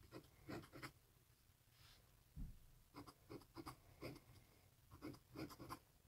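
Metal dip-pen nib scratching across paper as letters are written: faint, quick scratchy strokes in three runs with pauses between them.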